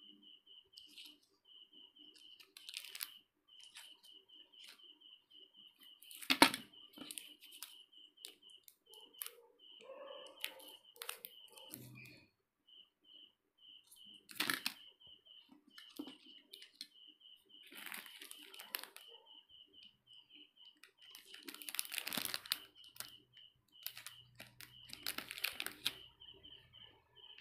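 Plastic candy wrappers crinkling as they are handled, in irregular bursts, the loudest about six seconds in, over a steady, rapidly pulsing high chirp.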